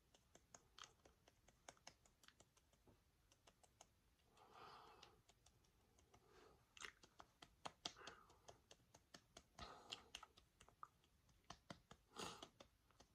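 Fingertips patting and rubbing stick blush into the cheek to blend it: faint, irregular soft taps and clicks with a few brief rubbing sounds.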